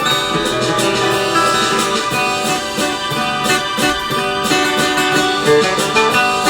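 Background music: plucked acoustic guitar with other instruments, notes struck in a steady rhythm.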